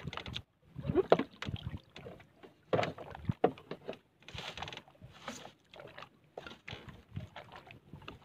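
Irregular knocks and rustling from a fisherman handling his handline and gear in a small boat. The loudest knocks come about one second and three and a half seconds in.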